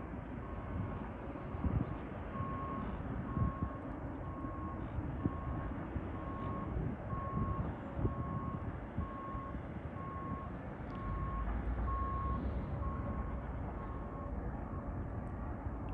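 Construction vehicle's reversing alarm beeping a single tone about once a second, over a steady low rumble.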